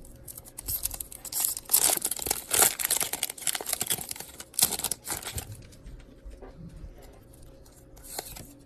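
Foil wrapper of a Pokémon trading-card booster pack being torn open and crinkled by hand: a dense crackling rustle for the first five seconds or so, then fainter handling rustles.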